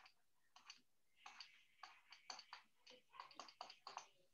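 Faint, irregular clicks and short scratches of a stylus tapping and stroking a pen tablet while handwriting, several a second.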